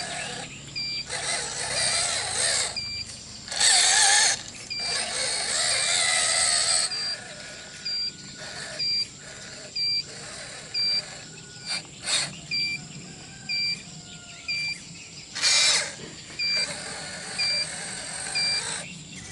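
Radio-controlled toy construction vehicles working: an electronic warning beeper gives a short two-pitch beep about once a second throughout, over the whine of small electric motors and gears that comes and goes in bursts, loudest a few seconds in and again about two thirds through.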